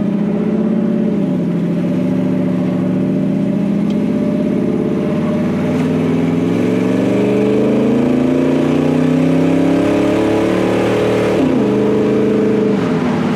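1956 Ford pickup truck's engine pulling under acceleration. Its pitch drops about a second in, then climbs steadily for about ten seconds and drops again near the end as the automatic transmission shifts up.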